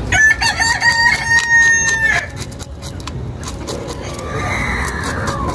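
A rooster crows once, a long call of about two seconds, and a second, quieter crow falls in pitch near the end. Short scraping clicks of a knife scaling a fish run underneath.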